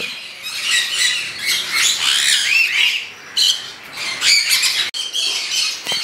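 Small parrots squawking and chirping, many short, high, overlapping calls from several birds at once.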